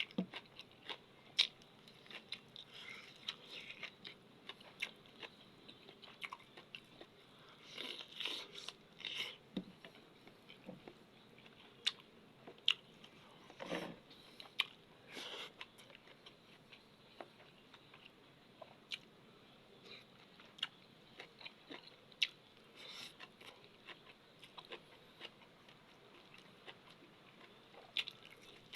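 Close-up eating sounds: irregular crunchy bites and chewing, with scattered sharp clicks and a few louder crunches.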